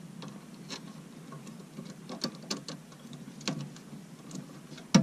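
Faint, scattered small clicks and ticks of hands working a white electrical cable and red-handled wire strippers at a metal junction box, with one sharper click near the end.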